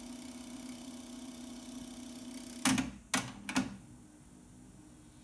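TEAC V-615 cassette deck's tape transport: a steady motor whirr, then about two and a half seconds in three sharp mechanical clicks half a second apart as the mechanism switches into play.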